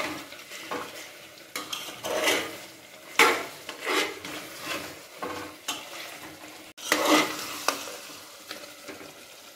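A metal ladle stirring and scraping mutton masala in an aluminium pressure cooker, in irregular strokes about once a second, with the masala sizzling in oil as it is fried down (bhuna) until the oil separates.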